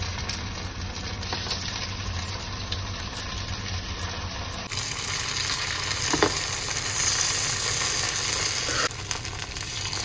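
Hot oil sizzling steadily in the wells of a kuzhi paniyaram pan as spoonfuls of idli batter are dropped in to fry. A light clink of the spoon sounds about six seconds in.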